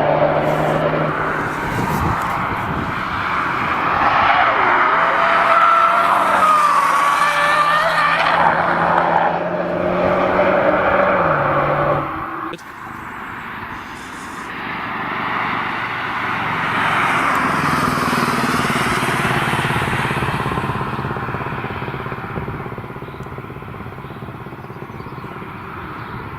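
BMW M135i test car's engine running hard at speed. Its note holds steady for about eleven seconds, then drops away sharply. A second swell of engine and road noise follows and slowly fades. The uploader describes the engine near the end of the run as developing a nasty misfire.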